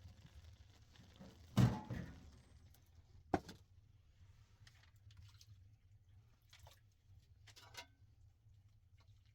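A heavy thud about one and a half seconds in, a sharp knock about two seconds later, and a few faint clicks near the end, over a low steady hum.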